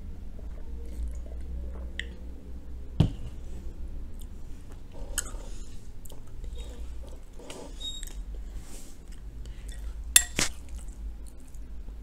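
Close-miked eating sounds: drinking, swallowing and chewing. A single sharp knock about three seconds in as the metal mug is set down on the table, and a bright clink of a metal spoon against the glass bowl near the ten-second mark.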